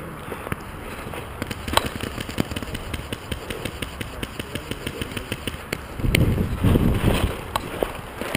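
Paintball markers firing in rapid succession, sharp pops several a second, with a loud low rustling rumble for about a second near the end as the camera shifts in the grass.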